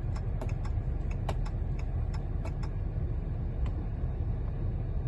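Chrysler 300C turn signal ticking at a steady rate of about two clicks a second over a low steady hum, as the newly replaced steering column switch is tried out.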